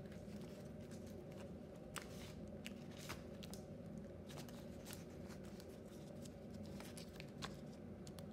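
Soft paper crinkling and scattered light clicks as a handmade paper Glock 19 model is handled and its slide gripped, over a steady low hum.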